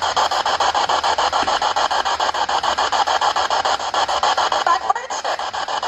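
Rasping static pulsing evenly and rapidly, about ten beats a second, with a brief faint wavering tone near the end.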